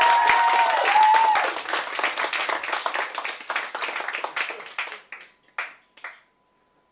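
Audience applauding, loud at first, then thinning to a few scattered claps that die out about six seconds in.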